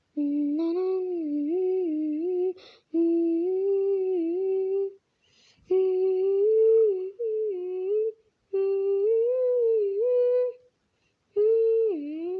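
A person humming a slow wordless tune in about five phrases of two to three seconds, with short breaks between them and the pitch gliding up and down.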